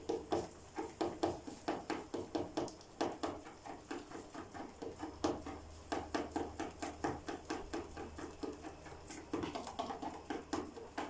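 Spatula stirring thick custard in a stainless steel bowl, working strawberry jelly powder into it, in steady strokes of about three a second.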